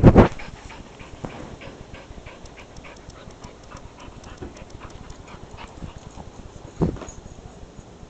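Small dog panting close to the microphone in quick irregular breaths, with two short loud bursts, one at the start and one about seven seconds in.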